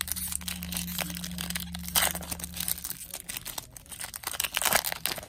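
A Magic: The Gathering booster pack's foil wrapper being torn open and crinkled by hand: a dense run of crackling, with louder tears about two seconds in and near the end.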